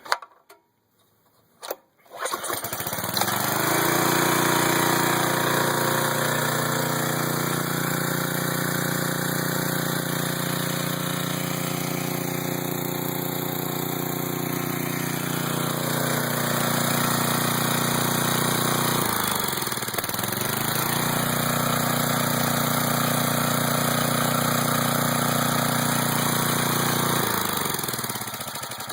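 6,000-watt gasoline generator engine, converted to run on fuel vapor drawn from the tank, pull-started: a sharp tug, then about two seconds later it catches and runs steadily on the fumes. Its speed sags briefly about two-thirds of the way through and recovers, and it runs down near the end.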